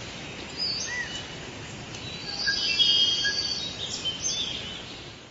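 Several birds chirping and whistling, short calls and glides over a steady hiss of outdoor background noise, busiest in the middle.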